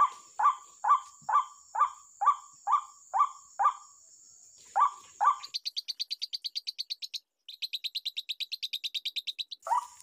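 White-breasted waterhen calling: a sharp falling call repeated about twice a second, stopping about four seconds in, with two more calls near five seconds. A fast, high, pulsed trill then follows for about four seconds, and a steady high whine runs under the first half.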